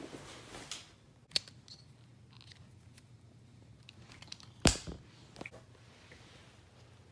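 Handling noise in a quiet room: a few sharp clicks and small ticks, the loudest a thump about two-thirds of the way in. It comes from the phone being handled close to the microphone while small white wireless earbuds are taken out and put into the ears.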